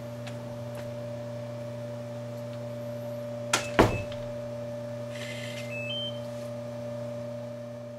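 Two sharp clicks of a keypad smart door lock and its doorknob latch about three and a half seconds in, followed about two seconds later by two short electronic beeps from the lock, the second higher. A steady electrical hum runs underneath.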